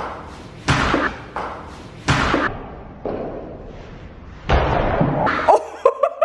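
A series of heavy thuds and bangs ringing with echo in a garage, the heaviest cluster near the end.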